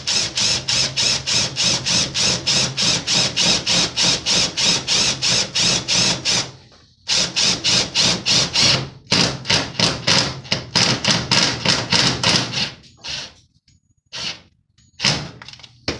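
Craftsman cordless drill/driver driving screws into a metal cabinet panel, with a fast, even clicking of about six or seven a second over the motor's hum. It runs in two long stretches with a short pause between, then a few short bursts near the end.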